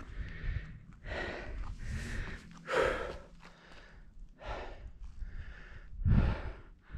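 A hiker breathing hard, with a heavy breath about once a second, over a low rumble on the microphone.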